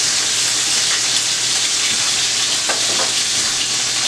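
Floured chicken breast pieces frying in hot olive oil in a cast iron skillet over medium-high heat, freshly turned to sear the second side golden brown: a steady, even sizzle.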